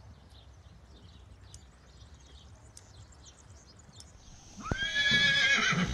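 A horse whinnying once near the end: a high call that jumps up sharply, holds and wavers for about a second. Before it there is only faint outdoor background with light ticks.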